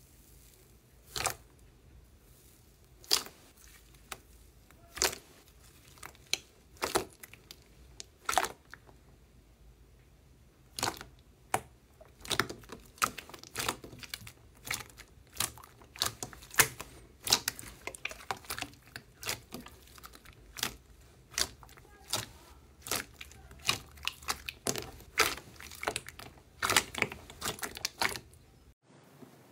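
Slime being handled and pressed, giving sharp pops and crackles. There are single pops about every two seconds at first, then a quicker run of crackling from about eleven seconds in, which cuts off suddenly just before the end.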